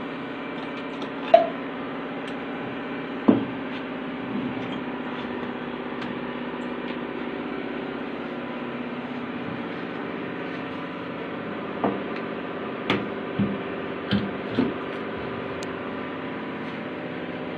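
CNC router running steadily with a hum of several fixed tones. About eight sharp clicks and knocks are heard: two early on, then a cluster about twelve to fifteen seconds in.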